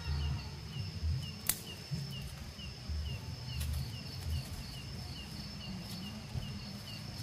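Night insects chirping: a steady high trill with a short chirp repeating about twice a second, over uneven low rumbling thumps and a single sharp click about a second and a half in.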